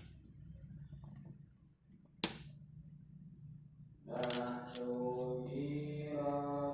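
A sharp click about two seconds in; then, from about four seconds in, sholawat chanting starts: one voice singing long held notes.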